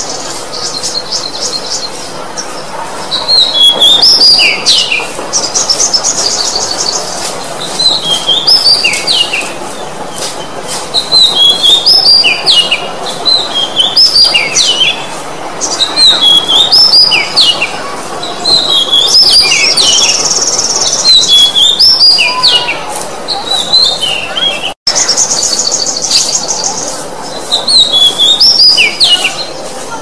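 Oriental magpie-robin (kacer) singing: loud, short whistled phrases of sweeping notes repeated every second or two, with a few rapid buzzy trills mixed in.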